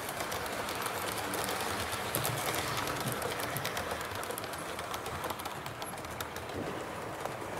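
Model railway passenger coaches rolling past on the track, a steady rumble with a rapid, irregular patter of clicks from the wheels running over rail joints and points.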